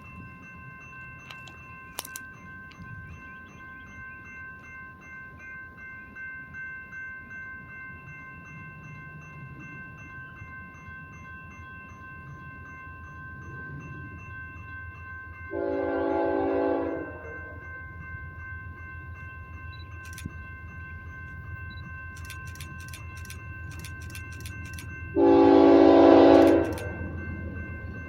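Freight locomotive air horn sounding two chord blasts of about a second and a half each, the second louder as the train draws closer, over the rising low rumble of the approaching diesel freight train.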